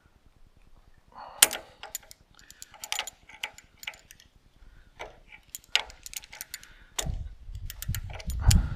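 Irregular metallic clicks and clinks, typical of hand tools and fittings being handled during tractor hose work. A low rumble comes in near the end.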